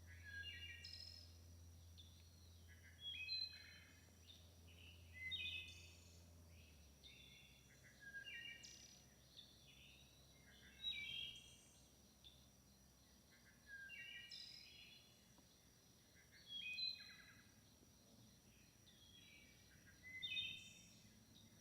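Wood thrush singing: about eight short, flute-like phrases, each a cluster of clear notes, repeated every two to three seconds.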